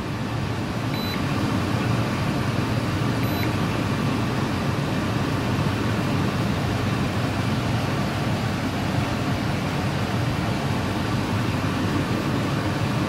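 Steady low mechanical drone, even throughout, with two faint short high beeps about one second and about three seconds in.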